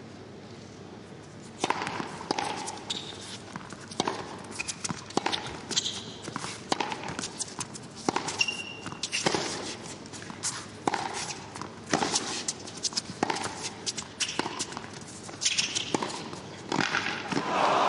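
A tennis rally: the ball struck by rackets and bouncing on the court, sharp hits about every 1.2 seconds, with brief shoe squeaks. Applause from the crowd breaks out near the end as the point is won.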